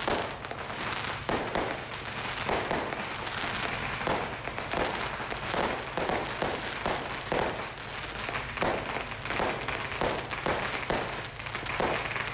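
Fireworks going off in quick succession overhead and at street level: a dense, unbroken run of bangs and crackles.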